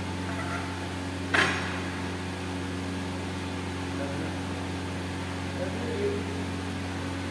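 A steady electrical hum, with one short sharp click about a second and a half in.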